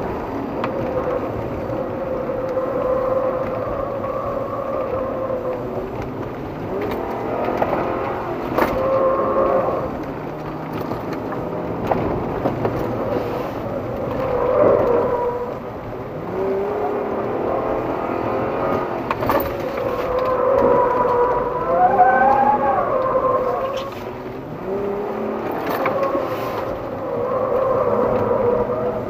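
Hyundai Santa Fe's engine, heard from inside the cabin, being driven hard: the revs climb and drop again and again as the car accelerates and slows. A few sharp knocks cut through it.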